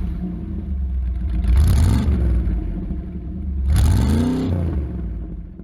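A car engine running after a start, revved twice with rising and falling pitch, about a second and a half in and again about four seconds in, then fading out.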